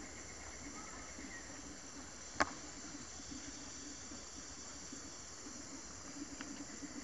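Steady high-pitched chorus of tropical forest insects, with a single sharp click about two seconds in.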